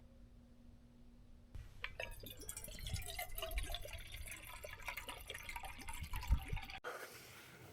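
Hot water being poured through a pour-over coffee maker, splashing and dripping. It starts about a second and a half in and cuts off suddenly near the end.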